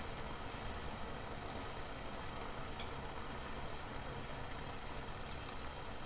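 Water heating in a stainless steel saucepan, a steady low rumble and hiss as small bubbles form on the pan's bottom while it comes to the boil.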